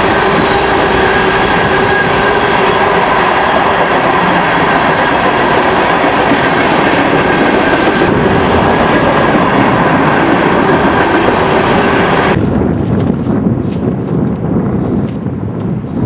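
Freight train rolling on the rails: a steady rumble and clatter of wheels with a few held squealing tones. About twelve seconds in it cuts off abruptly, leaving wind noise and short high hisses of an aerosol spray-paint can.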